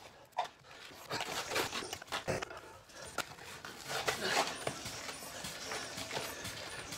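Lister diesel engine being turned over by hand with its starting crank, with a man breathing hard from the effort. From about four seconds in, the cranking settles into a steady rhythm of about two turns a second.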